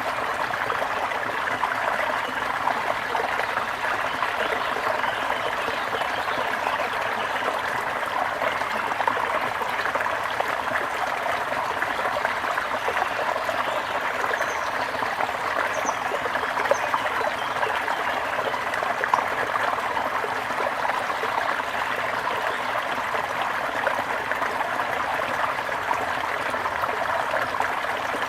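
Small stream of water trickling and gurgling steadily, with a few faint high bird chirps about halfway through.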